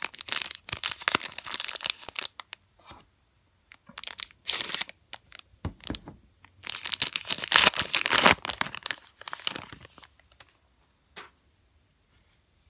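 Foil wrapper of a Topps Allen & Ginter baseball card pack being torn open and crinkled by hand, in several bursts of tearing and crinkling, loudest about seven to ten seconds in.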